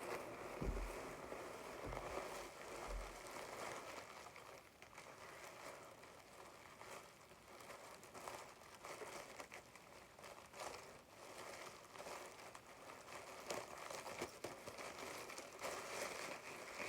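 Packaging crinkling and rustling continuously as a fursuit is pulled out of its box, with a few low thumps in the first three seconds.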